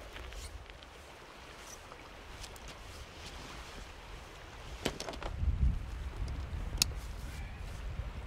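Steady rush of a river, with low gusts of wind buffeting the microphone from about five seconds in. A few sharp clicks and knocks from camping gear being handled, one near the five-second mark and a crisp one near seven seconds.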